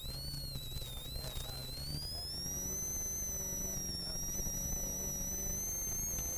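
Ford Sierra RS Cosworth's turbocharged two-litre four-cylinder engine pulling hard, heard from inside the cabin, with a high whine that dips and then climbs about two seconds in as the revs rise.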